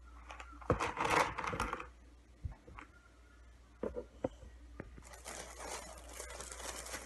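Crinkling and rustling of a bag being handled, with a few light taps; from about five seconds in the rustling becomes steadier.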